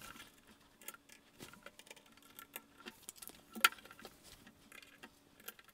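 Faint, scattered clicks and taps of small screws and parts being handled on a 3D-printed plastic robot-arm wrist during assembly, with one sharper click about three and a half seconds in.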